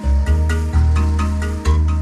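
Instrumental background music with a steady pulse of short pitched notes, about four a second, over a deep bass line.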